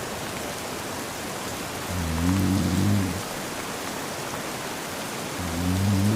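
Steady rain with a man snoring in his sleep. Two low snores about a second long each, one about two seconds in and one starting near the end, louder than the rain.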